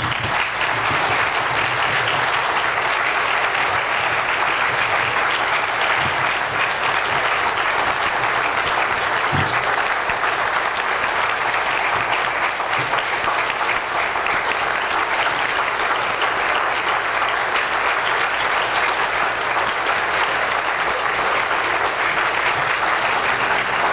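Large audience giving a long standing ovation: many people clapping steadily.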